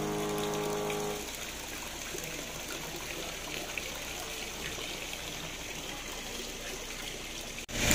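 Guitar music dies away about a second in, leaving a steady wash of falling water.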